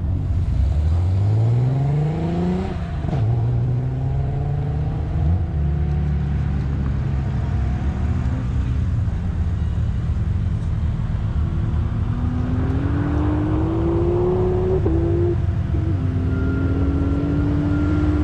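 Turbocharged 12-valve VR6 car accelerating hard from a standing start: the engine note climbs steeply, drops at a gear change about three seconds in, then keeps climbing more slowly through the higher gears, with another shift near the end.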